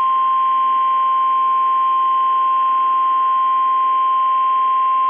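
NOAA Weather Radio warning alarm tone: a single steady tone at about 1,050 Hz with faint radio hiss behind it, the signal that a warning message follows.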